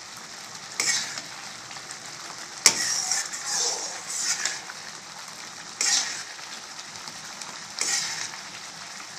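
Metal ladle stirring thick, bubbling rava kesari (semolina cooked in sugar syrup and ghee) in a stainless-steel kadai, scraping the pan in repeated strokes every second or two. One sharp knock of the ladle against the pan about two and a half seconds in.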